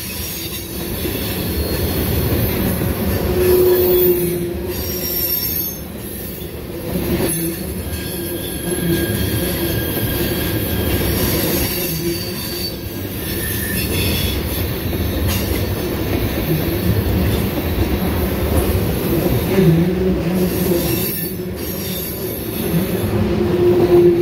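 Loaded tank cars of a freight train rolling past: steel wheels rumbling on the rails, with high-pitched wheel squeals that come and go, and a few clunks from the cars.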